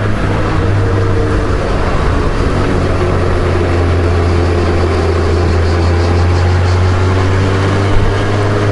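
Honda Gold Wing GL1500's flat-six engine running steadily while riding, with wind and road noise.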